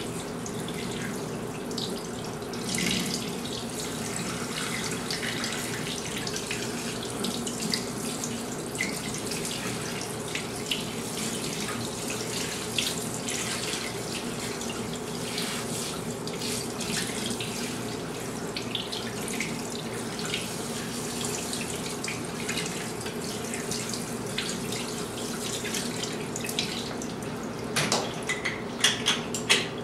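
Water spraying from a handheld sink sprayer onto hair and running into a sink, with small splashes. A few louder clicks and knocks come near the end.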